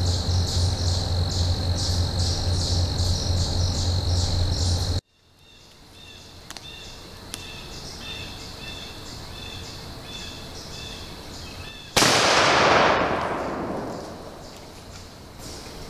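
Background music plays for about five seconds and cuts off, giving way to steady high chirping in the woods. About twelve seconds in, a single shot from a muzzleloading 20-gauge shotgun (a single-shot break-action fitted with a muzzleloader adapter) goes off, its report fading away over about two seconds.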